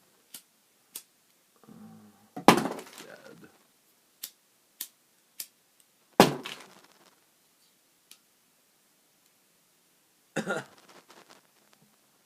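Lighters clattering against each other three times as they are handled and dropped onto a pile, with single sharp clicks in between from lighters being struck to test whether they still light.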